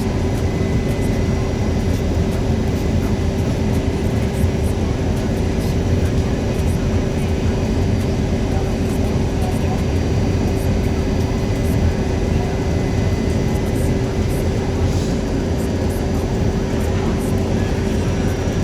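New York City subway car running along the track, heard from inside the car: a loud, steady rumble with a constant hum running through it.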